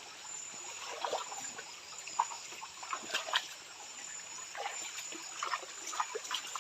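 Shallow stream water trickling, with small, uneven splashes and drips. A faint, steady, high insect trill runs underneath.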